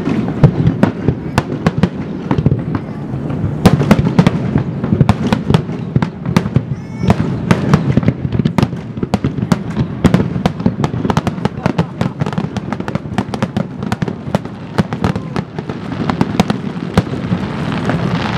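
Fireworks finale barrage: many aerial shells bursting in rapid succession, several sharp bangs a second, with fewer bangs near the end.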